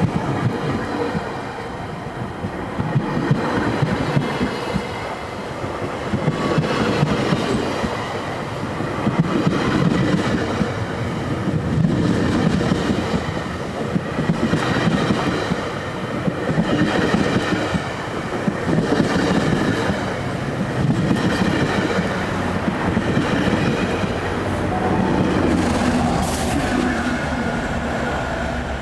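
GO Transit commuter train rolling past at low speed. Its steel wheels rumble and click over the rail joints, and the sound swells and fades every couple of seconds as each car goes by. A short high-pitched squeal comes about 26 seconds in.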